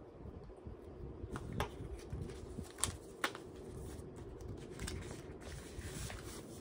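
Paper banknotes being handled and slipped into a clear plastic binder pocket: soft rustling and crinkling of paper and plastic, with a few light clicks in the first half.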